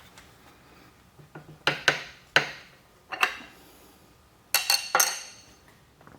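Sharp metallic clinks and clacks of a steel ER32 collet wrench and collet nut being handled and fitted on a tool holder, several ringing briefly, with a quick cluster of three about four and a half seconds in.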